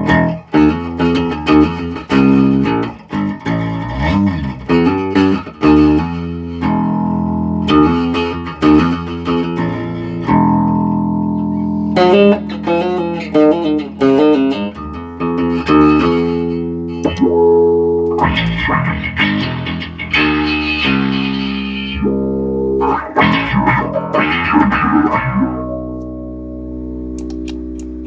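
Bass guitar played through a Source Audio Soundblox 2 Manta bass envelope filter pedal: a run of plucked notes and phrases with the filter sweeping their tone, tested after a repair of the pedal's footswitches. Near the end one note is held and slowly fades.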